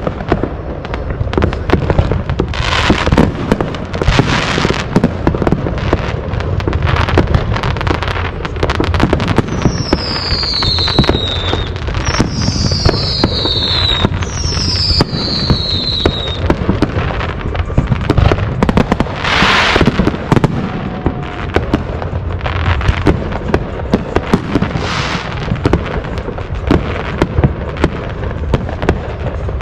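Fireworks going off without a break: a dense crackle of pops and bangs with several louder bangs. Three falling whistles come one after another from about ten seconds in.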